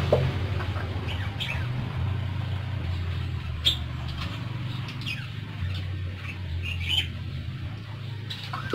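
Caged parakeets giving a handful of short, high chirps and tweets, spaced a second or two apart, some falling in pitch, the loudest about three and a half seconds in. A steady low hum runs underneath.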